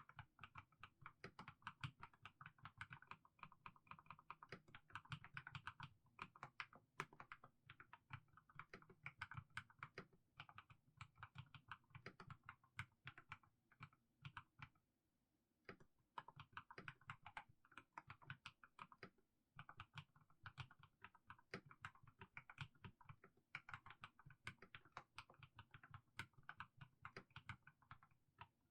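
Mechanical keyboard with fully lubed Haimu Sea Salt switches being typed on slowly, a quiet, continuous run of keystrokes with a brief pause about halfway through.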